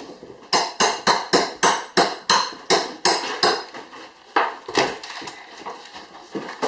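A hammer striking repeatedly during demolition work: about a dozen quick blows, roughly three a second, then a short pause and a couple more blows.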